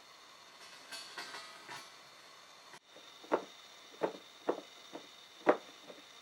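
Foley footsteps: a performer stepping in a steady walking rhythm, five soft thuds about half a second apart in the second half, after a stretch of faint rustling.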